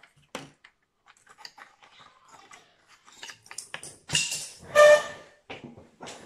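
Scattered light clicks and taps, then two short, loud pitched calls about four and five seconds in, the second the loudest sound here.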